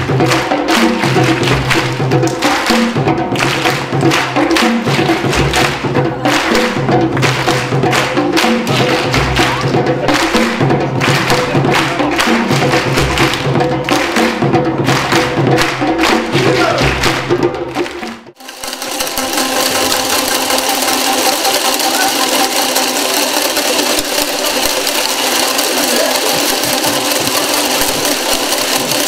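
Hand drums, djembes with a larger standing bass drum, played together in a steady repeating rhythm. About two-thirds of the way through it cuts off abruptly into a continuous dense clatter of many boomwhacker tubes struck at once, a jumble of overlapping pitches.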